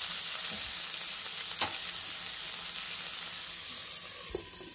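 Boneless chicken pieces sizzling in hot oil in a pan, the sizzle slowly dying down. Two light clicks, one about a second and a half in and one near the end.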